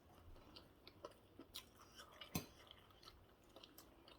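Faint chewing and small mouth clicks from someone eating fried plantain and egg, with a few scattered soft ticks, the most distinct about two and a half seconds in.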